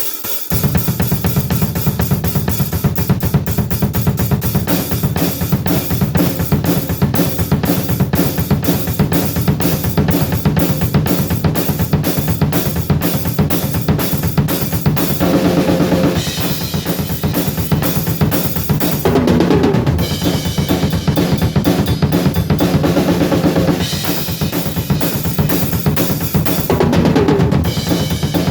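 Drum kit played with a fast, unbroken stream of double bass drum strokes, snare and cymbal hits over it. The rapid kick pattern comes in about half a second in, after ringing cymbals.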